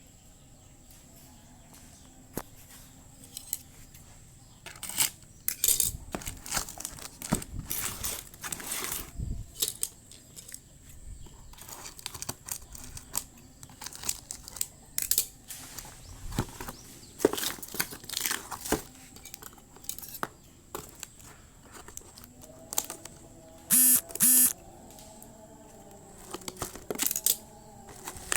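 Parcel packaging being handled, crinkled and torn open, with scattered rustles and clicks. Two short, loud bursts come close together a few seconds before the end.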